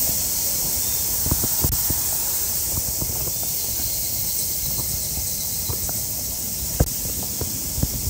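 A steady high-pitched hiss with a few short low knocks from footsteps on a wet paved path, the sharpest near the end.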